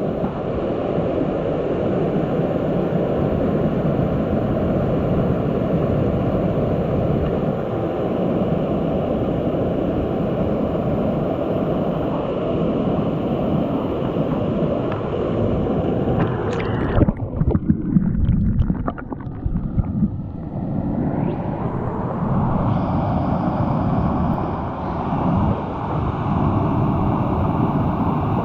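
Waterfall in full spate: a heavy, steady rush of falling water. About seventeen seconds in, wind buffets the microphone for a few seconds with low, uneven thumps, muffling the water's hiss.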